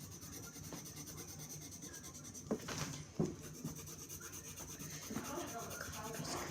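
Colouring on paper: a drawing tool rubbing back and forth as the picture's hair is shaded in, with two sharp light knocks about two and a half and three seconds in.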